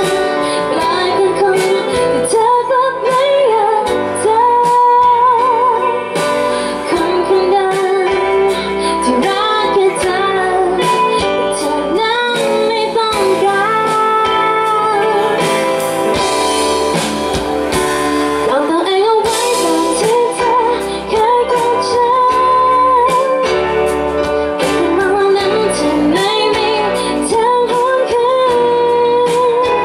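A woman singing a sad Thai pop ballad live into a microphone, with vibrato on held notes, over guitar accompaniment.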